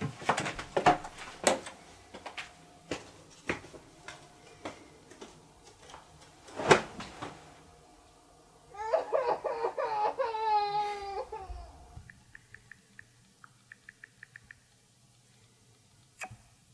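Scattered knocks and clicks of movement in a small room, then a woman's crying voice for about three seconds, wavering and falling in pitch. Faint, quick, regular ticks follow.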